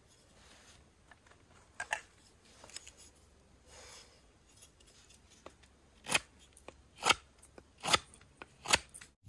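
Knife blade shaving a piece of wood: a few light scrapes, then four sharp cutting strokes about a second apart in the second half, as a wooden utensil is whittled.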